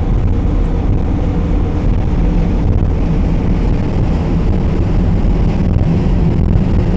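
The engines of the Hanil Express car ferry Red Pearl make a steady low drone with a deep hum as the ship passes close by.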